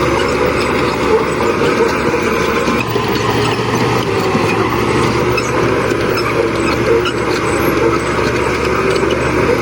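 Diesel engines of heavy earthmoving machines running steadily, a constant loud drone with no change in pitch.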